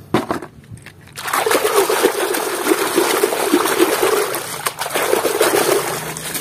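A hand splashing and churning soapy water in a plastic basin while washing toy cars, starting about a second in and easing off near the end. A few short knocks come just before it.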